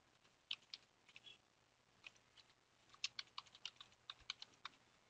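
Faint typing on a computer keyboard: a few scattered keystrokes, then a quick run of keys from about three seconds in.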